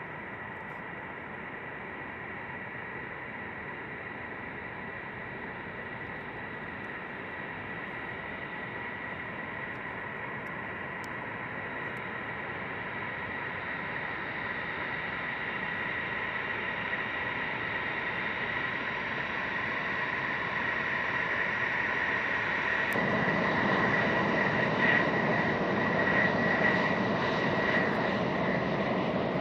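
F-16 fighter jets taxiing, their jet engines running at low power with a steady high whine over the engine noise. The sound grows steadily louder as the jets come closer, filling out further about three quarters of the way through as the lead jet draws near.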